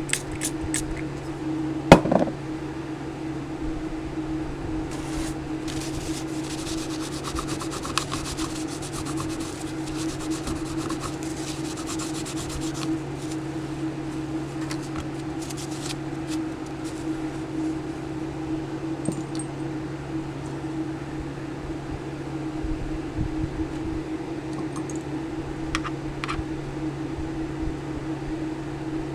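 Steady low hum of a small fan, with one sharp click about two seconds in and a stretch of fast crackling clicks over several seconds during the solder clean-up work.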